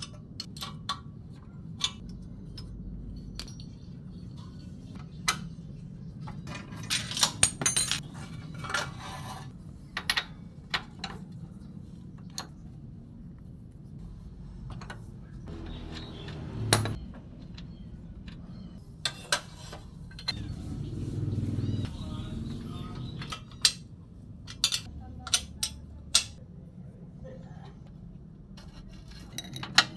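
Metal tools and exhaust parts clinking and jangling during an exhaust swap on a Honda CB100: scattered sharp clinks throughout, with a rattling cluster about seven to nine seconds in.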